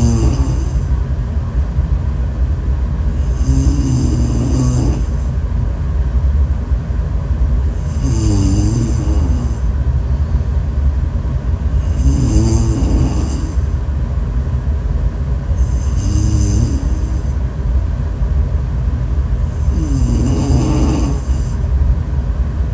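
A person snoring in a slow, regular rhythm, about six snores roughly four seconds apart. Each is a wavering low tone with a hiss, over a steady low rumble.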